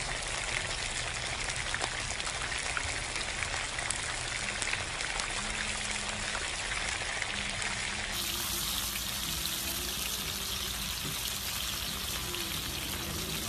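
Sliced steak and garlic cloves sizzling in their juices in a hot pan: a steady frying hiss with many small crackles and pops.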